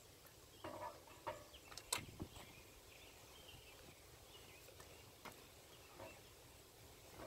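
Near silence, broken by a few faint knocks and clicks, the clearest about two seconds in, as a car wheel is handled and fitted back onto its hub.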